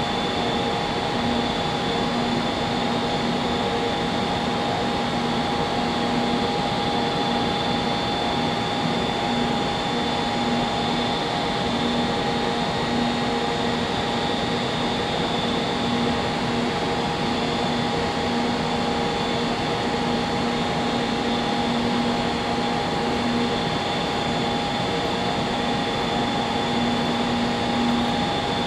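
Steady whirring hum of a stationary SRT high-speed train's on-board equipment, with several constant tones and a low tone that pulses on and off.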